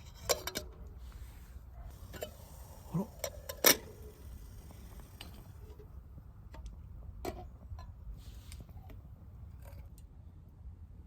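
Scattered light clicks and knocks, as of gear or cookware being handled, with the loudest sharp knock a little under four seconds in.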